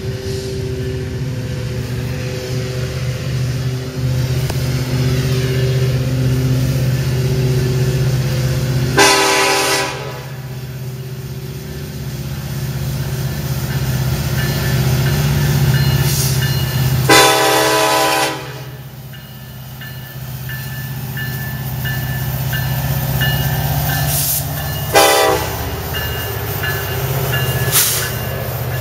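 Union Pacific diesel-electric freight locomotives running past with a steady engine drone, the horn sounded three times: a blast about nine seconds in, a longer one about seventeen seconds in, and a short one near the end.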